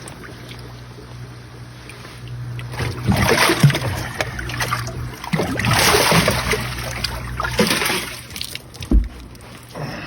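Splashing and handling noise in bouts through the middle, over a steady low hum, with a short low thump near the end.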